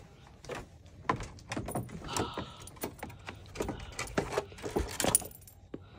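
A small dog walking in new shoes on her front paws across wooden deck boards: irregular light taps and clicks.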